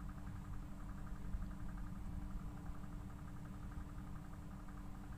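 Steady low background hum, with a faint, fast, evenly pulsing sound higher up.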